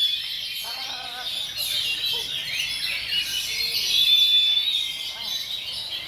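Many oriental magpie-robins singing at once, a dense tangle of overlapping whistles and chatter that swells about four seconds in.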